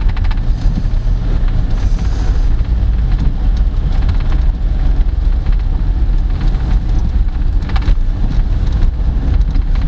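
Car cabin noise while driving in the rain: a steady, deep road and engine rumble with rain spattering on the car, and a few brief clicks.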